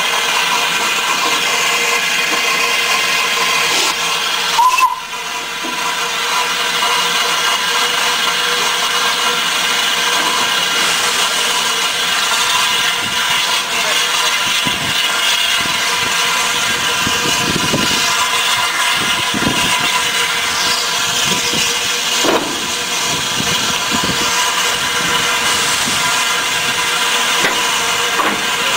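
Barclay 0-4-0 saddle tank steam locomotive standing with steam hissing steadily and loudly, a few faint knocks in the background. The hiss dips briefly about five seconds in.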